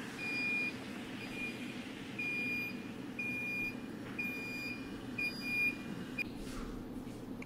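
Neptun Smart leak-protection control module beeping: about seven short, high electronic beeps, roughly one a second, stopping about six seconds in.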